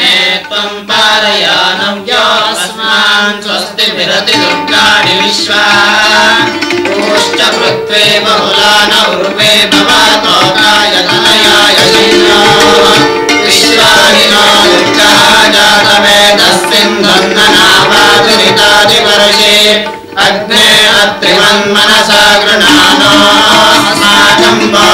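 Indian devotional music with drumming and a melody line. It breaks off briefly about twenty seconds in, then carries on.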